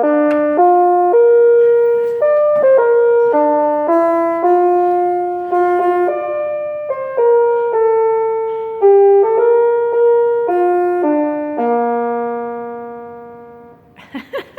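Original 1979 programmable door chime playing a programmed tune of short, steady notes. It ends on a long low note that fades out near the end.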